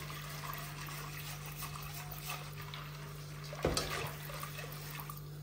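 Spiral whisk stirring a thin apple-molasses mixture in a stainless steel pot, the liquid swishing and sloshing, with a sharper knock of the whisk against the pot a little past halfway. A steady low hum runs underneath.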